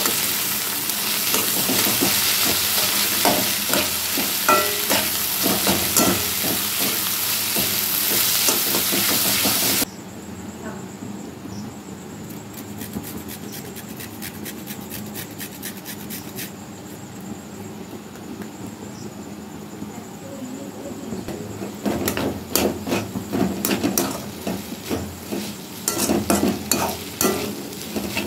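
Diced potato and onion sizzling in oil in a steel kadai, with a metal spatula scraping and stirring. About ten seconds in the sound cuts abruptly to a quieter stretch, where a carrot is rubbed on a hand grater over the pan, and rhythmic rasping and scraping strokes pick up again near the end.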